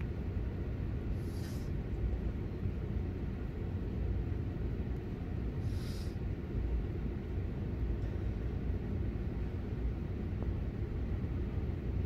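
A passenger train running through a station, heard from inside the coach: a steady low rumble of the wheels on the track, with two short hisses, about a second in and about six seconds in.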